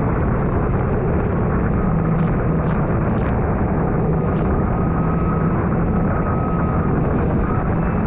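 Kawasaki Ultra 310LX personal watercraft running at speed, its supercharged four-cylinder engine holding a steady drone mixed with rushing water and spray. A faint high whine comes and goes above it. Heard from a camera mounted on the handlebar.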